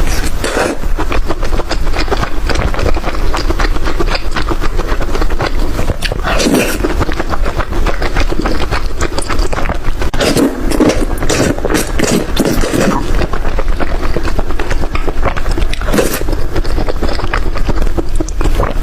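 Loud close-miked eating sounds: continuous chewing and crunching with dense crackles and wet mouth noises, over a steady low rumble.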